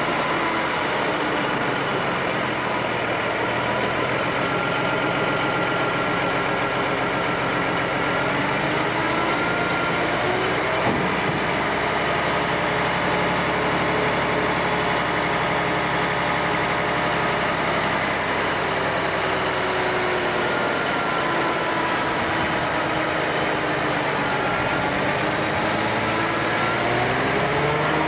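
Crane truck's engine running steadily while it drives the hydraulic boom lifting a concrete septic tank, its speed rising and falling several times as the crane is worked. A single knock about eleven seconds in.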